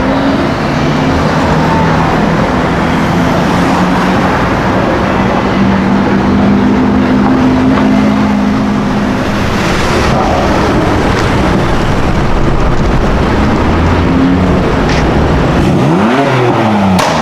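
A car engine running steadily and loudly, then revved near the end with its pitch climbing steeply.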